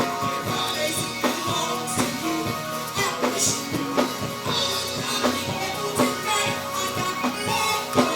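Gospel music with a steady beat under held instrument tones.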